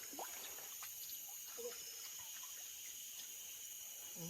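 Steady high-pitched drone of tropical forest insects, with faint scattered trickles and drips of water.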